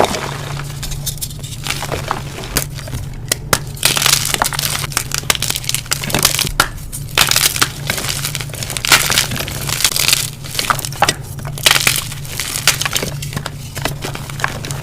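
Blocks of dyed gym chalk being crushed and crumbled: crisp, irregular crunching and crackling, denser and louder in stretches through the middle.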